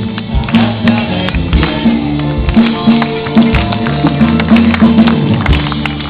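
Chamber orchestra and band playing an upbeat instrumental passage with a steady bass line, the audience clapping along to the beat.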